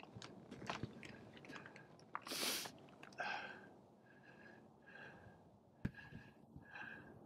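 Faint footsteps scuffing and knocking on rock and loose stones, with a hiker's heavy, slightly wheezy breathing repeating every second or so and a brief loud hiss about two seconds in.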